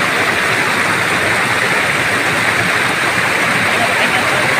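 Shallow rocky stream rushing over stones in small cascades: a steady, unbroken hiss of water.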